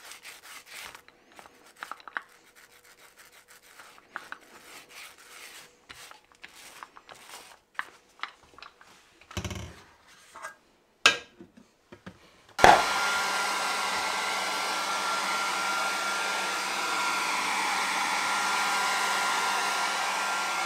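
Faint rubbing and clicking as primer is rolled onto a vinyl stencil with a small foam roller. About twelve seconds in, a hair dryer switches on and runs steadily, blowing over the wet primer to dry it.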